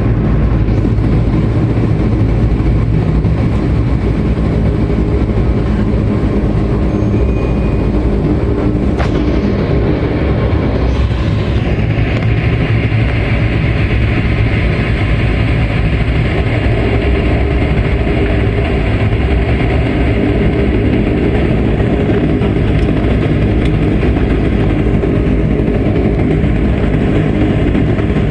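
Dash 8 Q400's Pratt & Whitney PW150A turboprop engines and propellers running steadily, heard from inside the cabin as a loud, even low hum. A brighter hiss joins about twelve seconds in.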